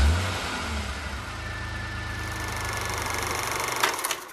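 Rocket lift-off sound effect: a steady rushing engine roar over a deep rumble. The rumble is strongest at the start, and the sound flares briefly before dying away near the end.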